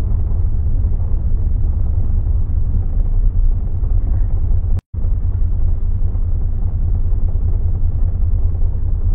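Steady low rumble of a city bus under way, engine and road noise heard from inside the cabin. The sound cuts out completely for a split second about halfway through, then resumes unchanged.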